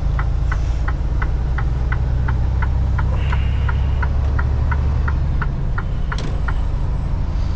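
A truck's turn-signal indicator clicking steadily, about three ticks a second, before stopping near the end. A sharper click comes about six seconds in. The truck's engine runs low underneath, heard from inside the cab.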